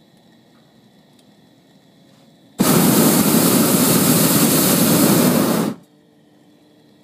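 Hot air balloon's propane burner firing in one blast of about three seconds, a loud steady rushing hiss that starts and cuts off abruptly.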